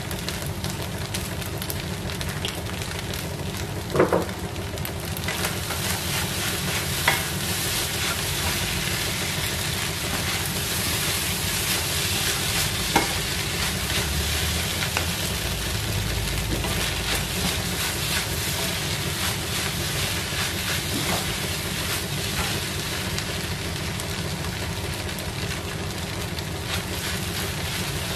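Fried rice sizzling in a frying pan as it is stirred and turned with spatulas, with a steady frying hiss. A few sharp knocks of a spatula against the pan, the loudest about four seconds in.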